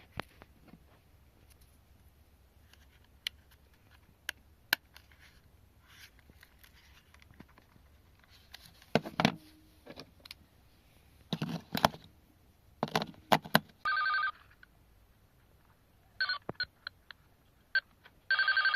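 Clicks and knocks of small plastic parts being handled, then a toy phone's electronic ringing tone: a short buzzy burst about fourteen seconds in, a run of brief beeps, and another burst at the end.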